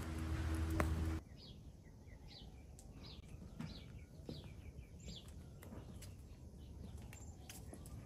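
Small bird chirping, a run of short downward chirps repeated several times a second. About a second in, a louder steady noise with a low hum cuts off suddenly.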